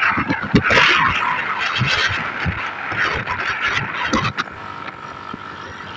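Driving noise of a moving road vehicle: a steady rush of engine, tyres and wind, loudest in the first half, with irregular low thumps of wind on the microphone. A faint steady whine comes in about halfway through.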